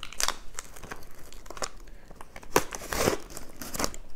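Stanley knife blade cutting open a cardboard box: irregular scratchy slicing and tearing of cardboard, with a louder rasp about three seconds in.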